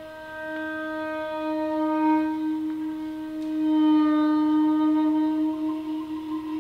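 Music: one long sustained note with a full set of overtones. It swells louder about four seconds in and begins to waver near the end.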